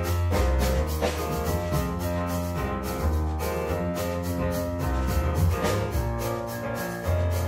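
Instrumental background music with a steady drum beat over held bass notes.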